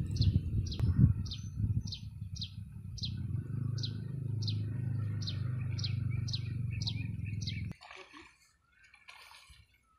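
A bird repeats a short, falling high note about twice a second over a low rumble, with a few thumps in the first second or two. Both cut off abruptly about three-quarters of the way through.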